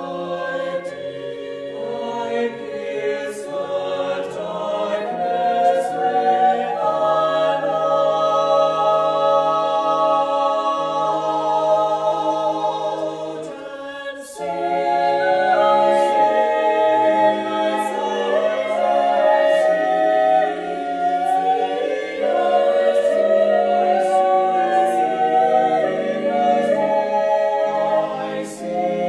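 Mixed choir singing sustained, slowly shifting chords, with crisp 's' sounds cutting through now and then. Partway through the sound briefly thins out, then the choir comes back in fuller.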